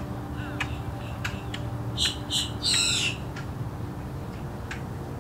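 Grackle calling: a scatter of sharp clicks and short squeaky whistles, then three loud, harsh, rasping calls about two to three seconds in, followed by a few more clicks.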